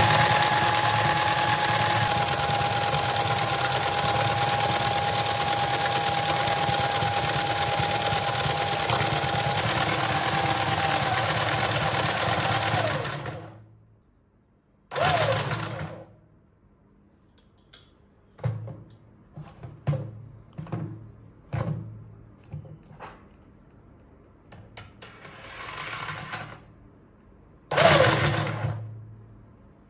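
Motorised dinosaur track toy overdriven at 31 volts: its small motor and plastic gears run with a loud steady mechanical rattle and a high steady whine, then cut out about 13 seconds in. Afterwards it starts only briefly twice, each time with a whine falling in pitch, with scattered clicks between.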